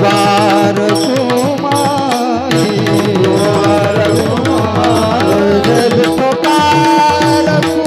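Indian devotional bhajan music: a melody with held and wavering notes over a steady hand-drum rhythm.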